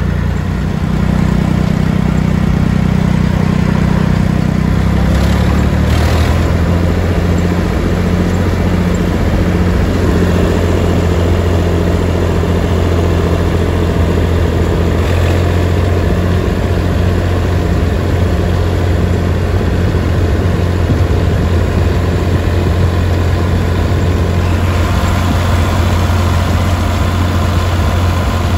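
Massey Ferguson 135 tractor engine running while the tractor is driven along. It gets louder about a second in and shifts pitch around six seconds, then holds a steady note.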